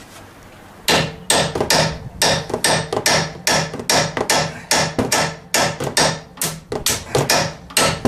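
Hammer striking a steel chisel set against a ball joint in a front control arm, metal on metal: a rapid run of about two dozen blows at roughly three a second, starting about a second in, to drive the old ball joint out.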